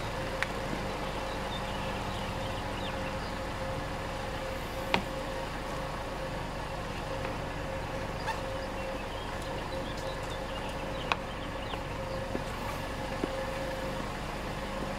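A vehicle engine idling steadily, with a few sharp clicks over it, the loudest about five seconds in and again near eleven seconds.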